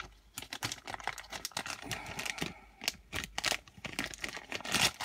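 Nail stampers and their plastic parts handled on a desk: irregular quick clicks, taps and light rattles.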